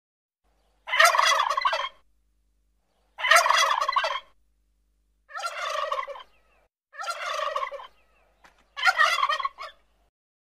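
A domestic turkey tom gobbling five times, each gobble a rattling call about a second long, with a pause of a second or two between them.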